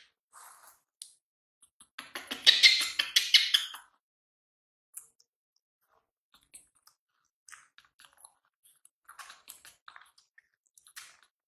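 Baby monkey's wet chewing and mouth clicks, with a louder, rapid flurry of clicks about two seconds in and scattered faint ticks after it.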